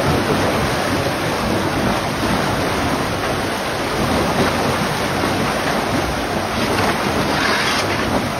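Muddy water rushing and churning hard through a narrow concrete channel: a steady, loud rush.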